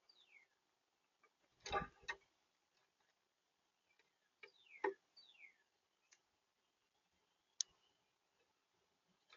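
Quiet backyard outdoor sound with a few short downward-sliding whistled bird notes, and scattered clicks and knocks. The loudest are a pair of knocks about two seconds in; there is another near five seconds and a sharp click later on.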